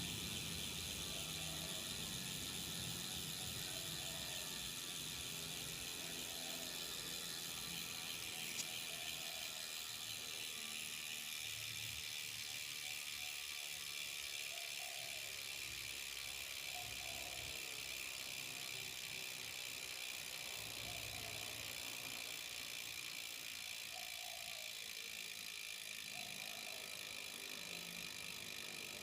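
Rear freehub of a road bike's NTT wheelset ticking as the wheel coasts: a rapid, steady run of pawl clicks, a sound riders call the hub's 'cricket'. It slowly fades as the wheel slows.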